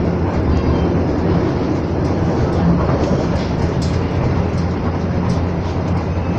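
Steady running rumble of a moving passenger train, heard inside an executive coach, with a low hum throughout.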